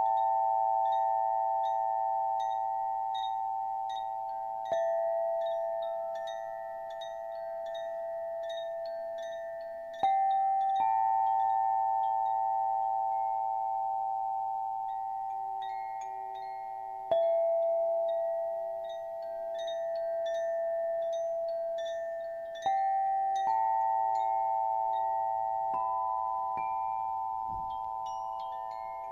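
Rock-crystal sound instruments struck four times, about every five to seven seconds. Each stroke is a cluster of clear tones that rings on long and slowly fades. Over it runs a light tinkling of high chime notes.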